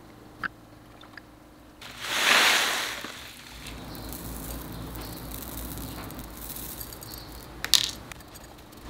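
Loose potting material poured into a small ceramic plant pot, a brief rushing hiss about two seconds in. Quieter rustling and handling follow, then a sharp click near the end.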